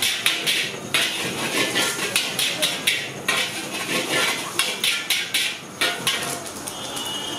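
Long metal spatula clanking and scraping against a large metal wok as noodles are stir-fried, in rapid, irregular strokes over a steady sizzle.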